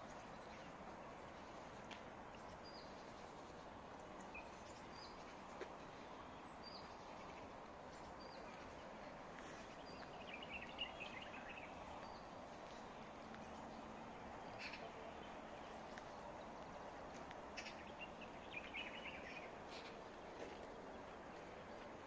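Quiet outdoor ambience: a steady background hum with small birds calling, short high chirps scattered throughout and two brief bursts of twittering about ten and eighteen seconds in.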